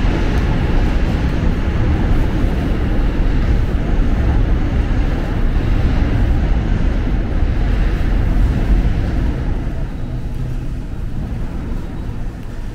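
Seoul subway Line 8 train rumbling on the track behind the platform screen doors: a loud, steady low rumble that eases off near the end.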